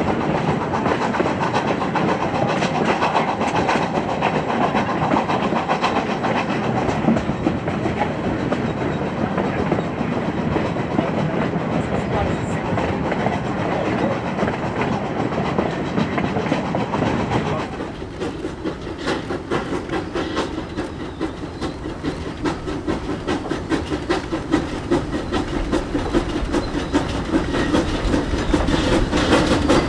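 Narrow gauge steam freight train running, with a dense clatter of wheels and cars. About two-thirds of the way through the sound drops suddenly to a quieter, steadier rumble, which builds again near the end.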